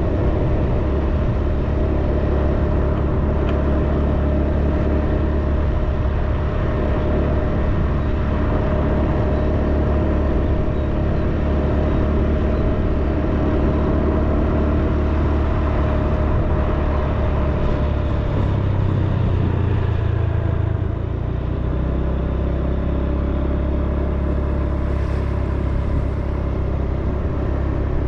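Steady engine and road noise of the vehicle carrying the camera, cruising along a paved road; the engine note drops for a few seconds about two-thirds of the way through, then holds steady again.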